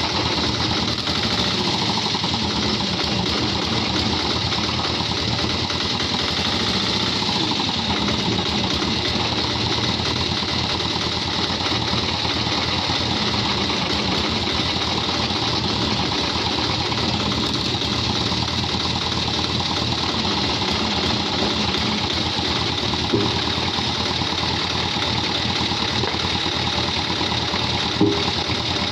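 Hydraulic log-splitting machine running steadily, a continuous even drone, with a short sharp knock about two-thirds of the way through and another near the end.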